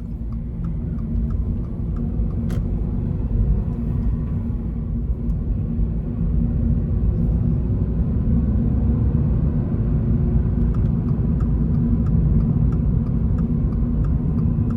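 Toyota GR86's 2.4-litre flat-four engine and road noise heard from inside the cabin while driving, the rumble growing louder over the first few seconds as the car picks up speed. A faint, regular ticking sits in the background.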